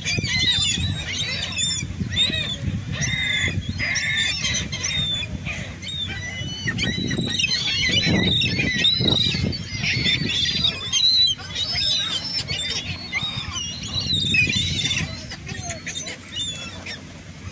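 A flock of seagulls calling while being fed: many short, overlapping cries, over a steady low rumble.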